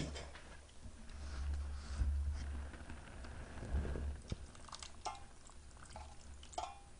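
Fruit and juice being spooned and pushed around in a bowl of watermelon fruit punch: soft wet squishing, then a few light clicks of the utensil, over a low steady hum.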